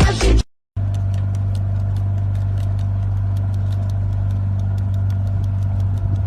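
Music cuts off, then after a brief gap a steady low mechanical hum with faint regular ticking, about three or four ticks a second.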